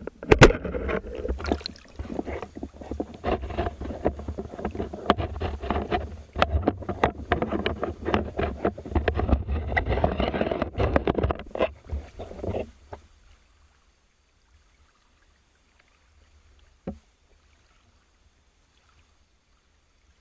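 Water churning and splashing against an underwater camera housing, with dense rattling knocks over a low rumble for about thirteen seconds. It then drops to near silence, broken by one short knock near the end.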